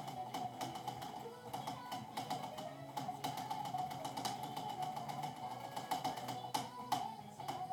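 Keys of a Genius mechanical keyboard with black switches being typed on, an irregular run of clacks, with music playing in the background.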